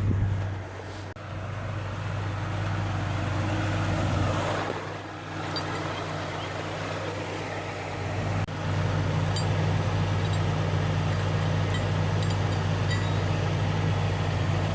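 Motor vehicle engine idling steadily, a low even hum that dips briefly a few times.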